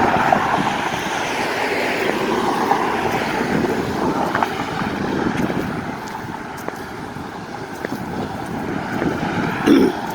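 Road traffic going by, a steady rush of passing vehicles that swells and eases, with wind buffeting the microphone. A brief louder sound comes near the end.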